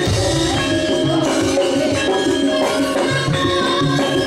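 Live Javanese gamelan music accompanying a dance: bronze metallophones ring out a running melody over repeated low tones, with percussion keeping a steady beat.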